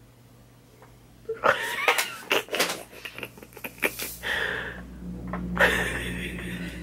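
A woman's stifled, wheezing laughter. Breathy gasps and sharp little breaths start about a second in, and a long breathy wheeze comes near the end.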